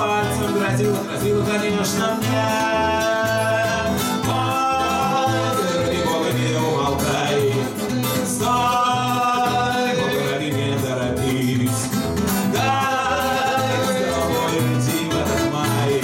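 Two men singing a Russian bard song to two strummed acoustic guitars, in sung phrases of a few seconds each over a steady strumming rhythm.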